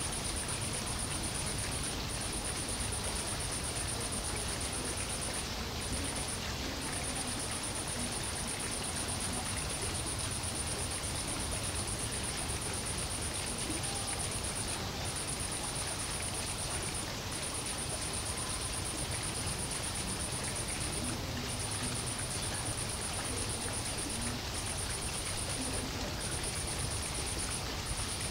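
Steady ambient hiss with a continuous high, thin whine that breaks off briefly every second or few seconds.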